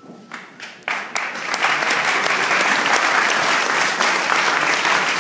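Audience applauding: a few scattered claps at first, then the whole crowd breaks into steady applause about a second in.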